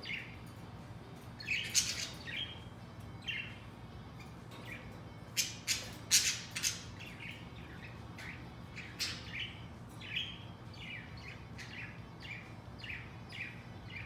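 Budgies chirping in short calls through the whole stretch, loudest around the middle.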